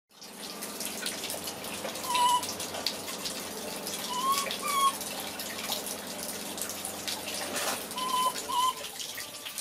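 Baby macaques giving short, wavering, whistle-like coo calls, several times and mostly in pairs, over a steady hiss of running water.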